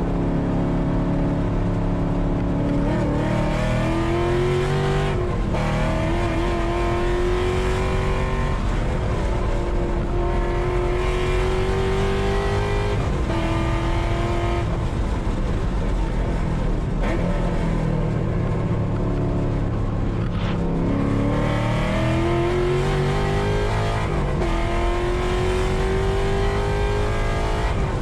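Race car engine being driven hard on track: its note climbs steadily through the revs, drops back sharply at each gear change or lift, and climbs again, several times over.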